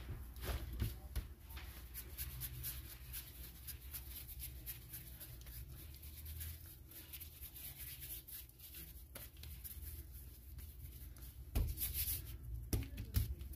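Hands tearing and rounding soft bread dough on a floured plastic cutting board: quiet rubbing and light pats, with a few louder knocks near the end. A low steady hum runs underneath.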